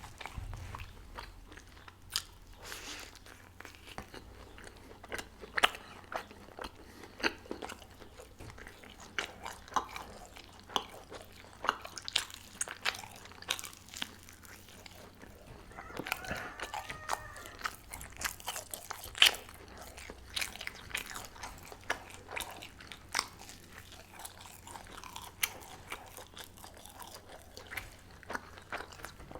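Close-miked eating: a person biting into and chewing chicken-stuffed crepe-dough pastry, with many sharp mouth clicks and snaps.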